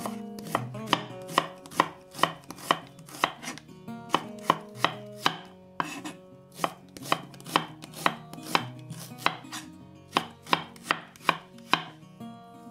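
Santoku knife slicing a red onion into thin half-rings on a bamboo cutting board: a steady run of crisp knocks as the blade meets the board, about two or three a second.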